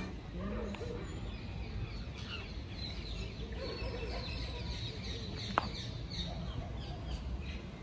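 Many small birds chirping in short repeated calls over a low, steady background rumble, with a single sharp click about five and a half seconds in.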